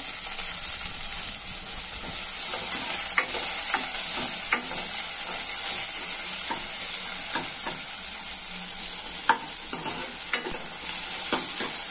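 Sliced onions sizzling in hot oil in a non-stick kadai, with a steady frying hiss. A steel ladle stirs them, scraping and tapping the pan now and then.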